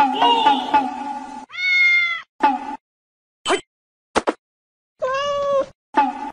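Domestic cat meowing twice, about a second and a half in and again about five seconds in, with a few short clicks between the calls.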